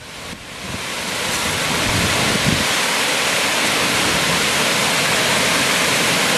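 Small waterfall pouring over a stone ledge into a pool: a steady, loud rushing splash that rises in over the first second or so.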